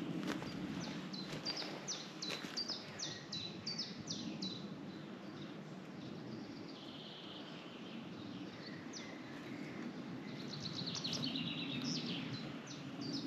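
Songbirds singing: a series of short, sharp falling notes repeated about two to three times a second, in the first few seconds and again near the end, with softer calls in between, over a low steady background noise.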